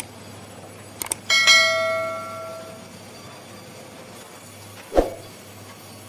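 Two quick clicks, then a bright bell ding that rings out and fades over about a second and a half: the notification-bell sound of a subscribe-button overlay. A single heavy thud near the end, over a steady low machine hum.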